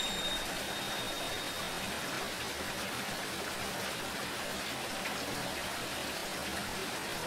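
Steady hiss of water, with the high ring of tingsha cymbals, struck a moment before, fading away over the first second or so.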